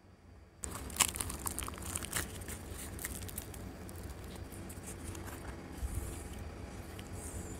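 Crisp puffed luchi (deep-fried flatbread) being torn apart by hand close to the microphone: a run of light crackles and rustles that starts about half a second in, densest in the first couple of seconds, over a low steady hum.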